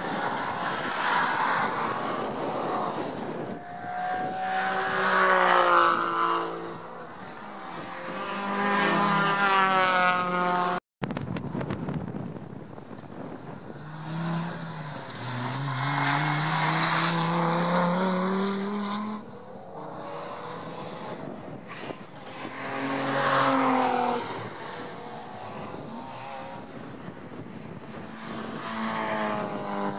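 Several race cars passing one after another on a circuit. Each engine note swells, rises in pitch as the car accelerates, and fades as it goes by. There is a brief break in the sound about a third of the way in.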